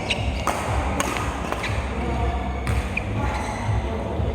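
Billiard balls clicking: a few sharp, separate clicks and short pings of the cue and balls striking, over a steady background hum.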